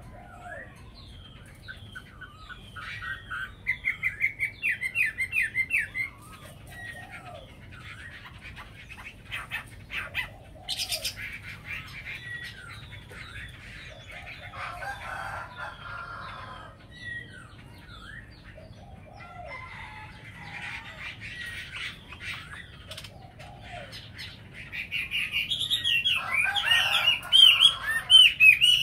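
Caged Chinese hwamei (họa mi) songbirds singing in bursts of rapid, warbling whistled phrases, with quieter spells between and the loudest, fullest song near the end.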